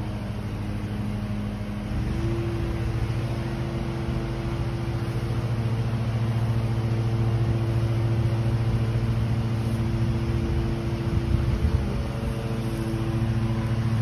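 Honeybee swarm buzzing as a steady low hum with several held tones, while the bees are scooped by hand onto the frames of an open hive box.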